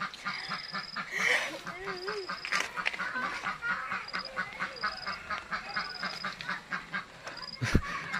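Ducks quacking in a fast, steady series, about four or five quacks a second, with a short high thin note repeating about once a second over them.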